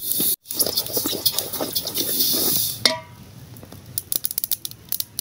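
Sesame seeds being stirred with a wooden spoon in an aluminium pot while roasting, a dense rustling patter. About three seconds in the stirring stops with a short ringing clink as the spoon is set down in the pot. After that come quieter scattered ticks of the hot seeds popping.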